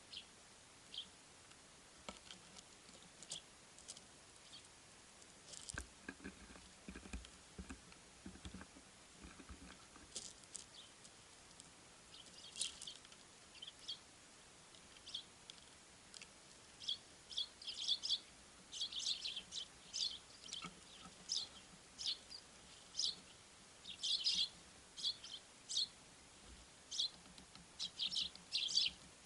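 Small forest songbirds giving short, high chirping calls, a few at a time at first, then many in quick succession from about halfway through.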